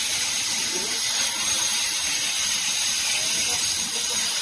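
A steady high hiss with no clear onset or change.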